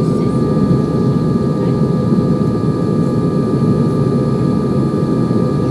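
Airliner cabin noise in flight: a steady engine and airflow roar with a thin, constant whine, joined by a second, higher whine shortly after the start.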